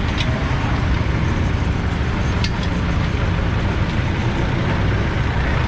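A vehicle engine idling close by, a steady low rumble, with two sharp clicks: one right at the start and one about two and a half seconds in.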